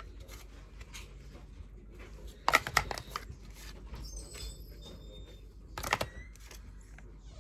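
Tarot cards being handled and flipped: two short flurries of sharp card clicks and snaps, about two and a half seconds in and again near six seconds, over quiet room tone.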